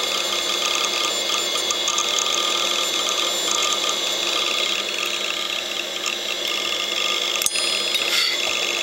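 Old 8 GB hard drive running with its cover off: the steady whine of the spinning platter under rapid clicking chatter from the read/write head arm seeking as it writes a file. One sharper click about seven and a half seconds in.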